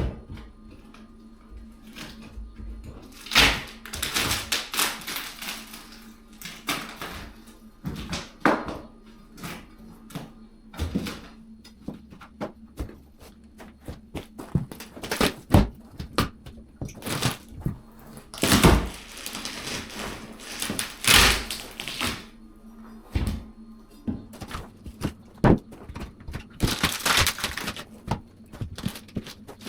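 Old wooden floorboards being pried up and handled: irregular knocks and thuds of wood, with several longer stretches of scraping and cracking wood, the loudest a little before halfway and just past two-thirds of the way through.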